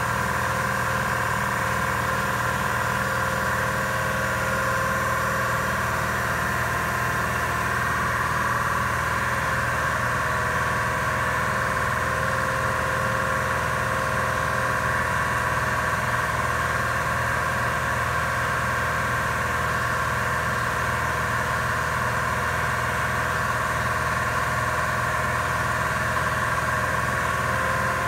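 An industrial machine running with a steady drone that does not change in pitch or level.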